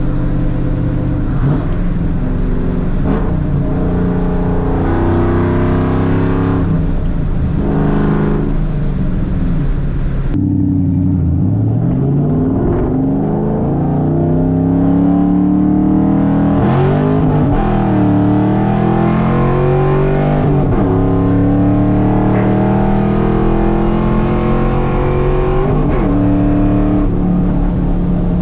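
Cammed 4.6L 2V V8 with long-tube headers, H-pipe and straight pipes, loud and unmuffled, running and being revved several times, its pitch rising and falling between steadier stretches.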